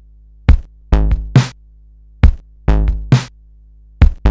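Hip-hop instrumental beat: sampled drum-machine hits in a repeating pattern over a steady low bass.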